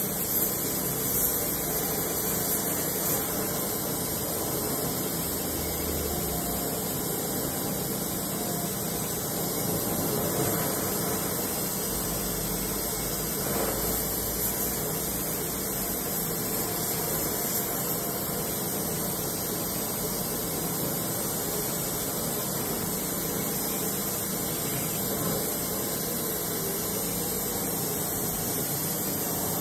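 Oxy-fuel rosebud heating torch burning with a steady hiss as its flame heats a square steel tube for bending.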